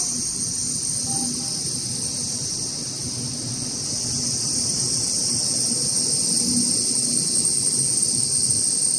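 Chinese high-speed electric train rolling along a station platform, heard as a low, even rumble. Over it runs a steady high-pitched hiss with a thin whistle-like tone in it, louder than the train.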